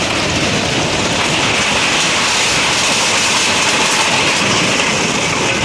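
A multi-storey concrete building collapsing during demolition: a loud, steady noise of falling concrete and debris.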